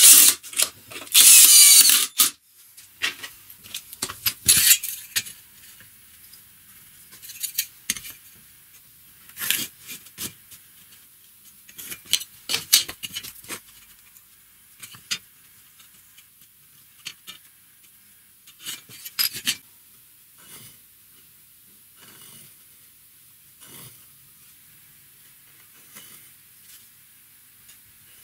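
A cordless drill drives a wood screw into pine in two short runs within the first two seconds. After that come scattered knocks, taps and clicks of wood and hand tools being handled on a bench.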